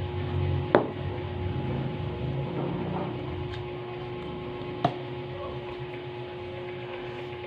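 Steady hum, with two sharp knocks about four seconds apart, the first the louder.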